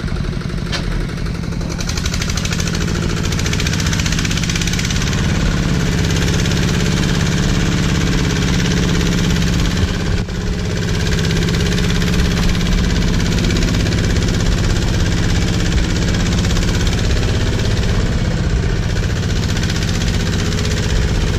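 Two-wheel walking tractor's single-cylinder diesel engine running steadily under load as it pulls a loaded passenger trailer, a fast, even chugging that holds constant.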